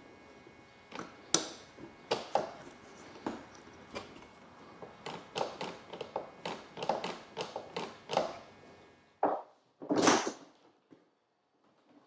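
Irregular clicks and knocks of hard objects being handled, with two louder scraping sounds about nine and ten seconds in.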